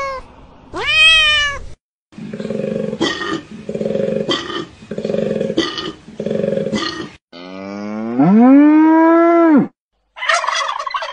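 A string of short animal calls cut one after another. First a short call that rises and falls in pitch, then four pulsed calls about a second apart, then one long call that rises in pitch, holds and cuts off sharply, and near the end a short rattling call.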